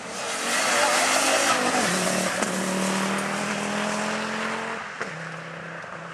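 Rally car passing close at speed on a gravel road: a loud hiss of spraying gravel and tyres as it goes by, then its engine pulling hard as it drives away. The engine note dips about two seconds in and again near five seconds, and it fades with distance toward the end.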